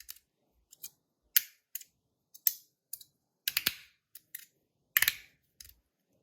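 Metal Rapt fidget slider being worked by hand: about a dozen sharp, irregular clicks as it snaps between positions, some coming in quick doubles and triples, the loudest about a second and a half in and near five seconds.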